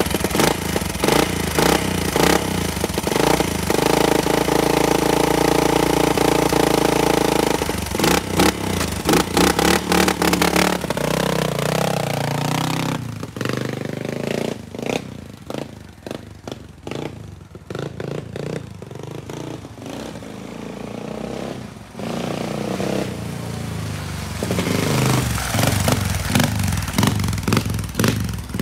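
Kawasaki KLX 250 dirt bike's single-cylinder engine revved hard at a standstill and held high for a few seconds, then blipped sharply. The bike then pulls away, its engine fading into the distance and growing louder again as it rides back near the end.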